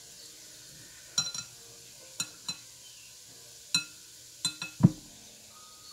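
Sharp clinks against a glass mixing bowl, about eight at irregular intervals with the loudest near the end, as roasted squash flesh is scraped off its skin into the bowl by hand.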